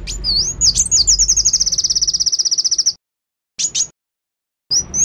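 Caged sunbird singing: high whistled notes that slide up and down, then a rapid, even trill for about two seconds that stops abruptly, followed by short notes after a pause.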